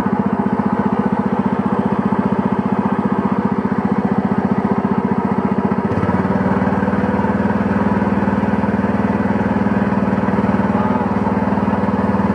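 A small fishing boat's engine running steadily with a fast, even putter, and a sudden change in tone about halfway through.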